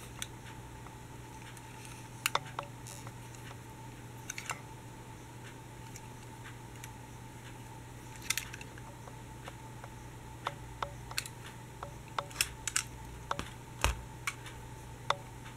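Diecast and plastic toy trams and buses handled on a tabletop: scattered light clicks and knocks as a model tram is turned over in the hands and set down among the others, with a quick run of clicks in the last few seconds.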